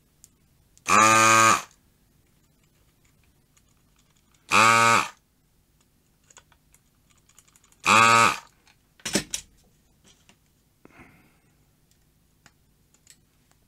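Built-in vacuum pump of an S-993A desoldering gun buzzing in three short bursts of about half a second each, a few seconds apart, as the trigger is pulled to suck solder from a circuit board. A short clatter and a few light clicks follow.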